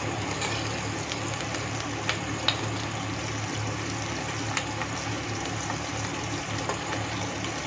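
Onion, tomato and green chilli pieces sizzling steadily in hot oil in a stainless steel pot, being sautéed on a medium flame. A slotted spoon stirs them, clicking lightly against the pot a few times.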